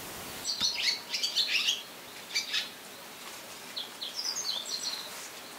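Barn swallows twittering: quick, high chirps in three bouts, the first and loudest in the opening two seconds, a short one in the middle and another near the end.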